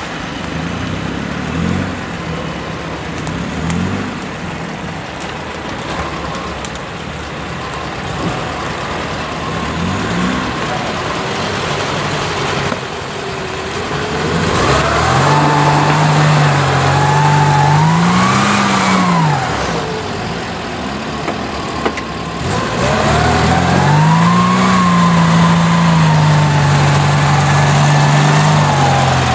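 Off-road vehicle's engine running while driving, then revving harder twice in the second half, its pitch climbing and falling as it works under load.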